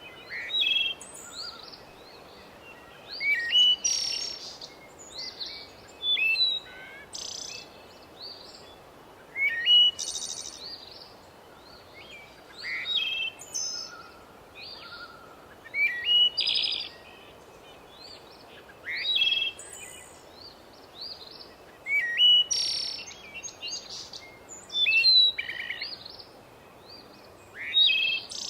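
A songbird singing, repeating a short phrase of high, quick notes about every three seconds over a steady low background hiss.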